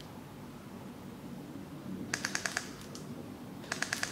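Airsoft rifle firing two short bursts of automatic fire, about a dozen shots a second: one about two seconds in and one near the end.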